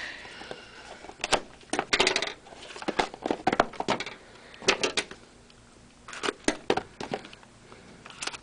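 Handling noise from a sealed trading-card box being opened: irregular clicks, taps and short crinkles of plastic wrap and cardboard, with pauses between them.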